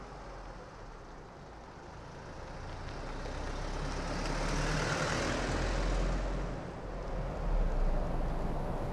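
A Chrysler 300 sedan driving slowly past and pulling up: tyre and engine noise swells to a peak about halfway through and fades, then a low engine rumble is loudest near the end.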